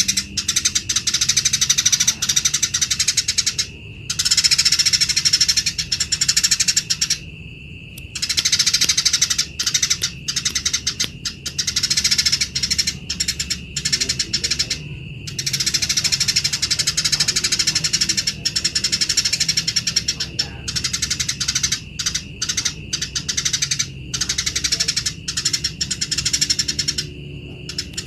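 Eurasian tree sparrows giving a rough, rapid fighting chatter in bursts of a few seconds with short breaks between them. A steady high tone runs underneath.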